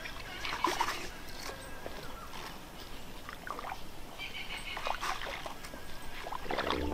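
Irregular sloshing and splashing of feet wading through the wet mud and shallow water of a flooded rice paddy, with rice seed being scattered by hand.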